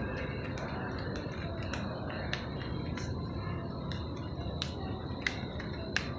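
Supermarket ambience: a steady hum of store background noise with a faint high tone, broken by scattered light clicks and taps several times a second.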